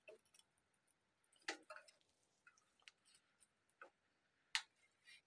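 Near silence with a few faint, sharp clicks and taps, the two clearest about a second and a half in and near the end. They come from a hot soldering iron tip being worked into a plastic lid hinge to weld it.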